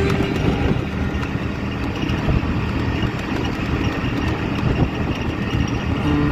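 Auto rickshaw's small engine running steadily with road and wind noise, heard from inside the open passenger cabin while riding.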